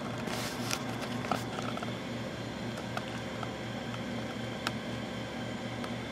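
Steady low hum and hiss that pulses about four times a second, with a few faint clicks and rubs from the camera being handled.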